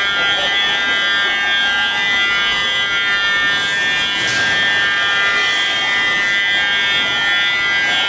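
Steady high-pitched machine whine from a rotary milking parlour's equipment, running unchanged, with a brief hiss about halfway through.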